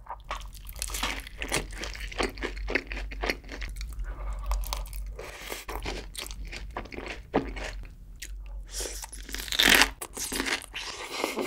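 Close-miked eating sounds: crunchy bites and chewing of sauced fried chicken, in a quick irregular run. Near the end comes a louder crisp crunch as a piece of cucumber kimchi is bitten.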